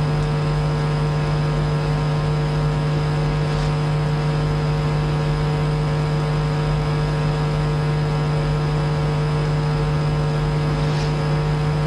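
Steady electrical hum with a strong low buzzing tone that does not change, like mains hum picked up by the recording equipment.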